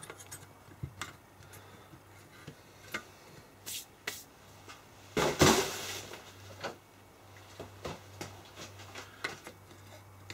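Scattered light clicks and taps of small plastic and metal parts being handled and pried at on the back of a BMW car alternator, as its regulator and brush holder are worked loose. About five seconds in there is a louder, brief scraping rustle.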